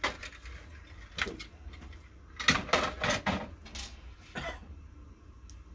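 Plastic panels of an office laser printer being handled: a run of short clacks and knocks, the loudest cluster a little past the middle.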